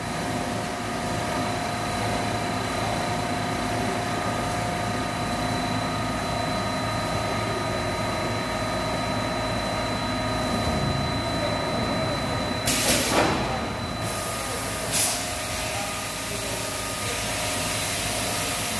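LESHAN electric extrusion blow-moulding machine running a one-station test cycle: a steady machine hum with several high whining tones. About two-thirds of the way through comes a loud hiss of compressed air lasting about a second and a half, then a shorter hiss about two seconds later.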